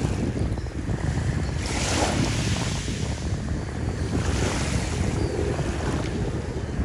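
Wind buffeting the microphone over small waves washing on the shore, the wash swelling twice, about two seconds in and again past four seconds.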